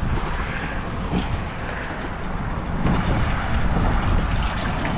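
Steady low outdoor rumble, with two sharp clicks about a second and about three seconds in.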